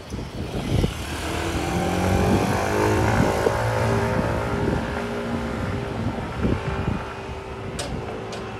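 A motor engine passing by: a steady hum that swells over the first few seconds and then slowly fades, its pitch sliding gently down as it goes. Two sharp clicks sound near the end.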